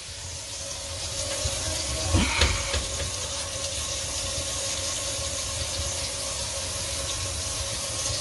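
Tap water running down a stainless kitchen sink drain and its tailpiece, heard from under the sink as a steady rush with a faint steady tone, during a leak test of the freshly resealed drain gasket. A few knocks about two seconds in.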